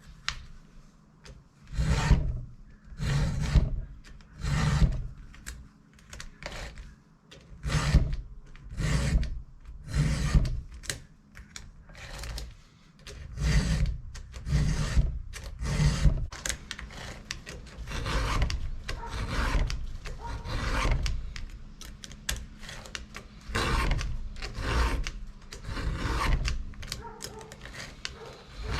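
A file sharpening the chain of a Husqvarna 435 chainsaw: rasping strokes across the cutters, about one a second, in runs broken by short pauses.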